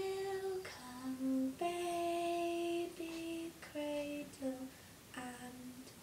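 A voice humming a slow, simple lullaby-like tune without words, in a series of held notes that step between a few nearby pitches.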